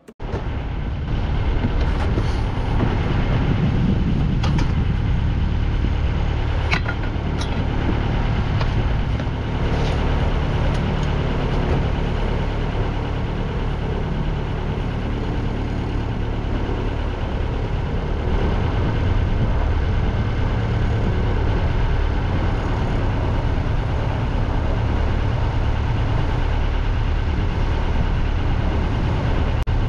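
Sailboat's inboard auxiliary engine running steadily at low speed while the boat creeps up to a mooring ball. A few sharp knocks in the first ten seconds or so.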